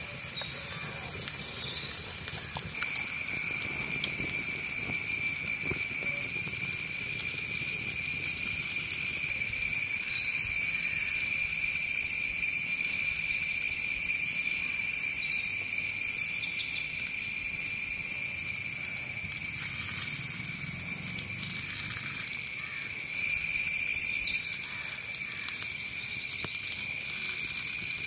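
Steady high-pitched drone of forest insects, louder from about three seconds in.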